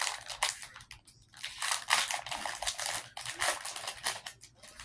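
Pokémon trading cards and elite trainer box contents being handled: quick, crisp rustles and clicks of card and packaging, pausing briefly about a second in.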